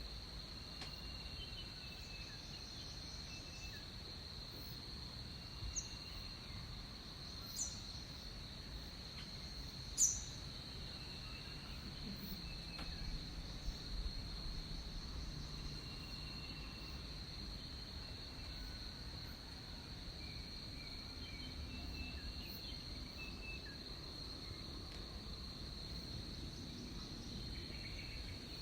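Tropical rainforest ambience: a steady high-pitched insect drone, with scattered short chirps and calls over it. A few brief sharp high chirps stand out, the loudest about ten seconds in.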